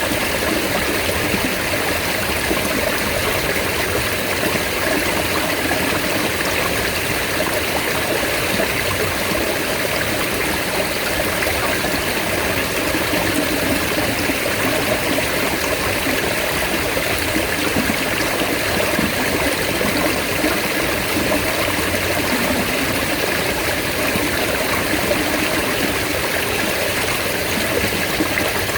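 Mountain stream water running steadily with an even rushing and trickling.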